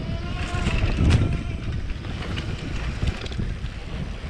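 Wind buffeting the camera microphone over the rumble and rattle of an electric mountain bike rolling fast over a dirt trail, with a sharp knock from the bike about a second in.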